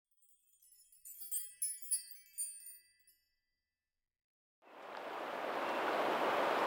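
A short sting of high, chiming bell-like tones, then silence, then steady coastal water ambience fading in from about four and a half seconds: a constant rush of water from a lagoon's tidal outflow meeting the sea over a pebbly shore.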